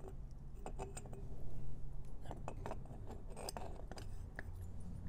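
Scattered light metallic clicks and small scrapes as an aluminium Athena 70cc big-bore cylinder is handled over the cylinder studs and piston of a Yamaha Zuma two-stroke scooter engine. The clicks bunch together about two to four seconds in.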